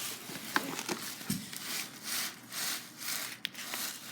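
Paper pages of a book being turned and handled, a few papery swishes and rubs.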